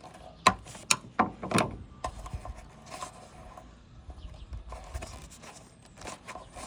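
A rubber wiring boot on a van's liftgate corner being pried and pulled off by hand. There are several sharp clicks and snaps in the first couple of seconds, then softer scraping and rubbing.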